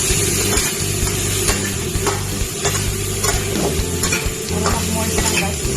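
Food sizzling in a hot pan as it is stir-fried, with a metal spatula scraping and clinking against the pan every half second or so. A steady low hum runs underneath.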